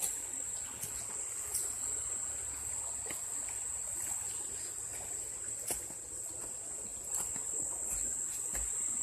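A steady, high-pitched chorus of insects, with scattered light clicks and knocks.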